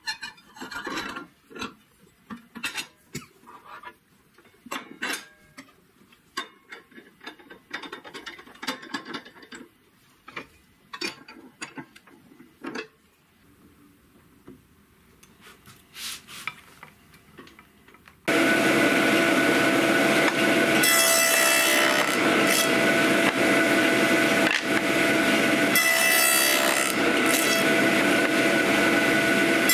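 Light metal clinks and knocks of a blade being fitted and set on a table saw's arbor. About two-thirds of the way through, the table saw starts abruptly and runs with a steady whine, its noise growing brighter at times as wood is fed along the fence into the blade.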